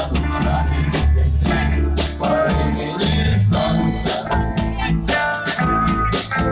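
A rock band playing a cover song with drum kit, bass and electric guitar, and a singing voice over them.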